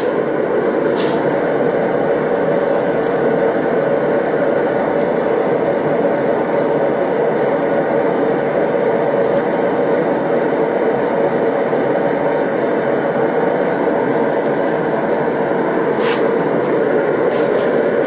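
Air/propane torch (a TS8000) burning steadily into a Kaowool-lined stacked-brick furnace, a constant, even rushing noise of the flame as it heats a crucible of scrap silver.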